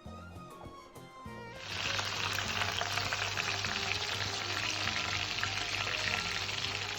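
Background music with violin for about the first second and a half, then breadcrumb-coated stuffed potatoes sizzling as they deep-fry in hot oil, a loud, even crackling hiss.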